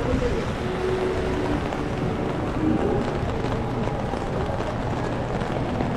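City street ambience in the rain: a steady wash of traffic and rain noise.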